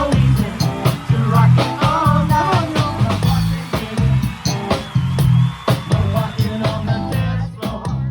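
Band music with a steady drum beat, a heavy bass line and a singing voice; the music thins out near the end.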